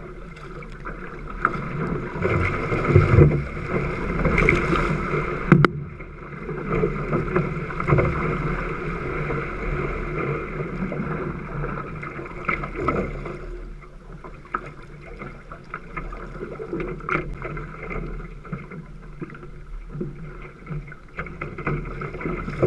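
Water rushing and splashing along the hull of a Kahele one-person outrigger canoe being paddled through wind-driven chop, with paddle strokes in the water and wind on the microphone. A sharp knock comes about five and a half seconds in, and the water noise eases in the second half.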